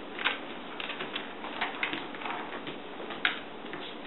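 Border collie's claws clicking on a tile floor as it steps about: irregular light clicks, the sharpest about three seconds in.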